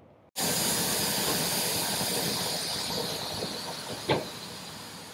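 Steam locomotive standing with steam venting: a loud, steady hiss that starts abruptly and slowly fades. About four seconds in there is a single short knock.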